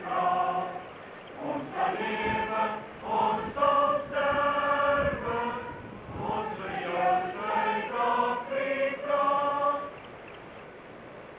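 A group of voices singing together, a slow song with long held notes, stopping about ten seconds in; after that only a faint steady hiss remains.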